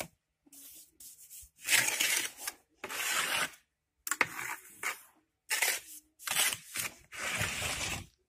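Steel trowel scraping wet mortar along a metal bricklaying mortar template on top of a brick course: about six rasping strokes, each under a second or so, with short pauses between.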